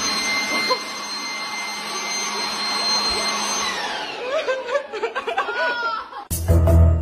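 Handheld leaf blower running at full speed, a rush of air with a steady high whine, winding down a little under four seconds in. A woman then cries out and laughs, and music starts just before the end.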